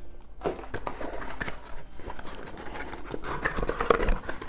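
A rigid cardboard perfume box being unpacked by hand: the lid lifted off and the box handled, with scattered light taps, scrapes and rustles of packaging.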